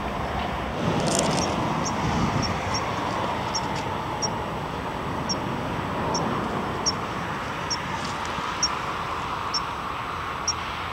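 A small bird chirping again and again, short high chirps coming irregularly about once a second, over a steady outdoor rushing noise.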